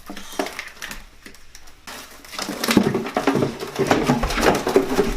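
A dense run of quick scuffling and rustling, starting about two and a half seconds in, as a bird is grabbed and bundled into a cardboard shoebox.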